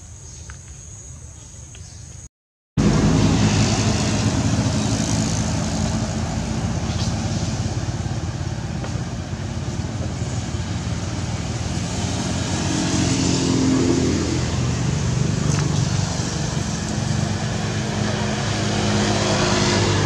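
Motor vehicle engine running with steady traffic hum, a low drone that starts abruptly at a cut about two and a half seconds in and shifts slightly in pitch later on.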